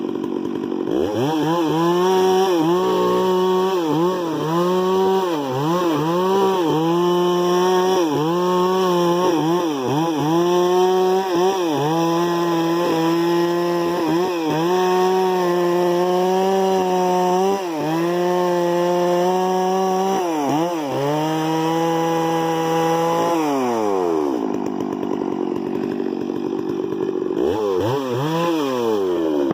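Two-stroke chainsaw revving hard, its pitch dipping and recovering every second or so as the chain bites into wood. About 23 seconds in it winds down to a lower running speed, then gives one brief rev near the end.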